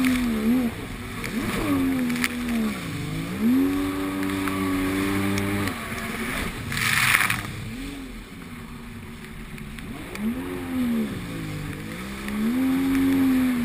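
Personal watercraft (jet ski) engine running hard over rough waves, its pitch repeatedly dropping and climbing again as the throttle is eased and opened, with a brief loud rush of noise about seven seconds in.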